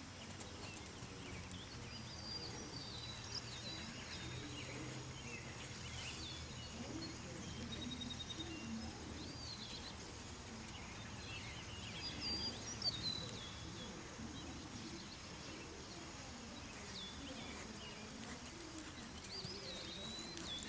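Birds chirping and whistling in short calls over steady outdoor background noise, with a low hum through the first two-thirds and one brief louder sound about two-thirds of the way through.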